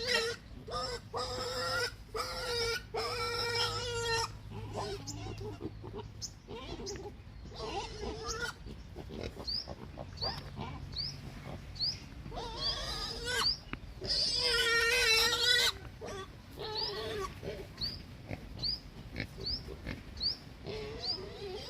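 Hungry pigs calling again and again: squeals and oinks of under a second each, the loudest run about two-thirds of the way through. Short high chirps repeat steadily through the second half.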